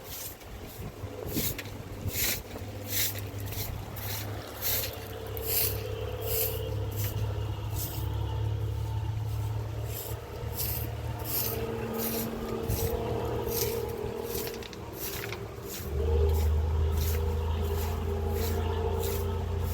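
An engine running steadily, with many short sharp clicks over it; the engine gets louder about three quarters of the way through.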